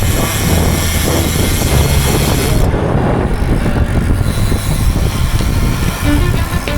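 A road vehicle running steadily, with a low hum and a haze of road and wind noise; the high hiss thins out about three seconds in.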